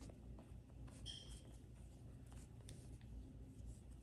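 Faint rubbing of a microfiber cleaning cloth wiped across an iPhone's glass screen, with small scattered scuffs and a short high squeak about a second in.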